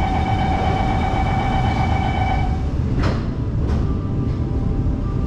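Downtown Line MRT train running through a tunnel, heard from inside the car: a steady low rumble with a steady electric whine that stops about two and a half seconds in. Two short sharp clicks follow about a second later.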